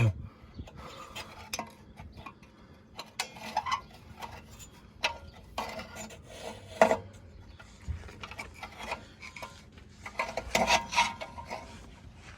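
Scattered handling noises: light metallic clinks, rubbing and scraping, with a sharper click about seven seconds in and a busier run of clatter near the end.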